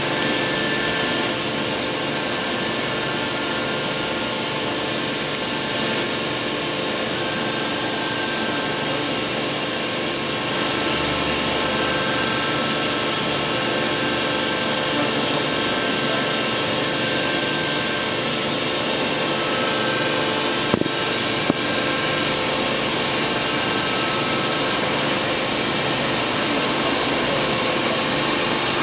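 Matsuura MC-800VF vertical machining centre running under power: a steady whirring noise with faint, steady whines above it, and two sharp clicks about two-thirds of the way through.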